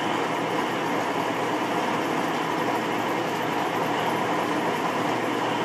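Vertical milling machine running steadily, its stacked double slitting saw turning slowly at about 70 RPM as it is fed gently into a bicycle seat tube insert to cut a small starting nick for the binder slot.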